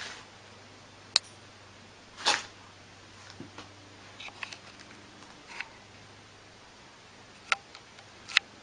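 Husky and ferret at play: scattered short clicks and knocks. The loudest are a brief scuffle a little after two seconds in and two sharp clicks near the end.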